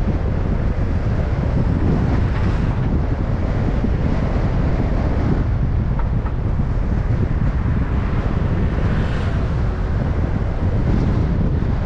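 Wind buffeting the microphone of a car-mounted camera while the car is driven, a steady low rumble with road noise underneath.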